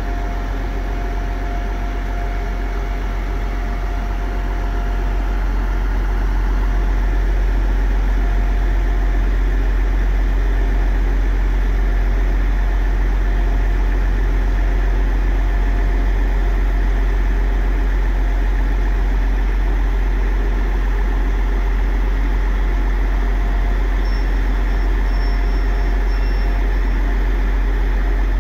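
Transport for Wales Class 175 diesel multiple unit's underfloor diesel engines running at idle in a steady low drone, growing a little louder about five seconds in.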